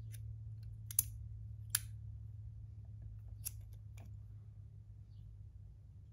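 Pieces of a brass magnetic stackable slider fidget clicking together as they are moved and snapped into place: three sharp clicks about a second, a second and three-quarters, and three and a half seconds in, then a fainter one, over a faint steady low hum.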